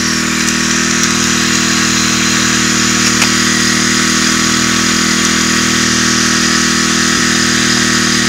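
Small gasoline engine of a 2.5-inch suction gold dredge running steadily at constant speed, with an even hiss over it.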